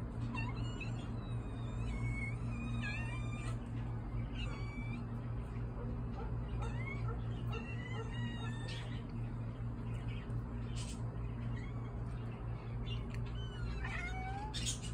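Several cats meowing again and again in short, high-pitched calls, many of them sliding up or down in pitch, over a steady low hum.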